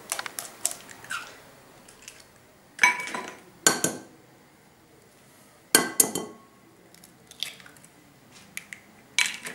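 Eggs being cracked on the rim of a ceramic bowl: a few sharp knocks, each with a brief ring, spread through with smaller clicks of shell between them.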